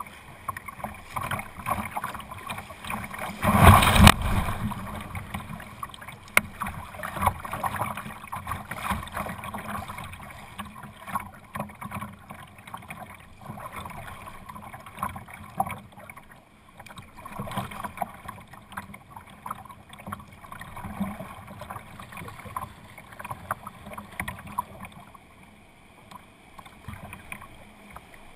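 Kayak paddle strokes and river water splashing and lapping against the hull, picked up by a GoPro mounted low on the bow, with one much louder splash or knock about four seconds in.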